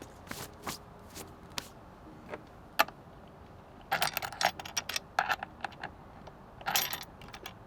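Small loose metal hardware clinking and rattling as it is handled: scattered light clicks, a sharp click about three seconds in, and two bursts of rattling in the second half.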